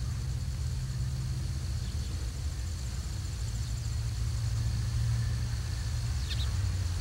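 Low, steady rumble of a 1927 Baldwin 2-8-0 Consolidation steam locomotive working toward the listener from a distance, with a brief high chirp about six seconds in.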